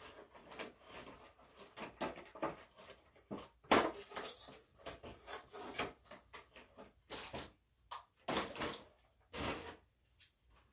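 Someone rummaging by hand to find something: irregular rustling, shuffling and light knocks of objects being moved about, with a few louder clatters about four seconds in and again near eight and a half seconds.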